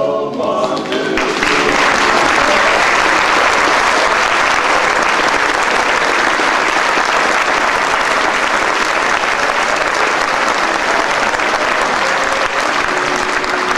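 Audience applauding steadily and loudly. It swells up in the first second as singing ends, and singing voices come back in near the end.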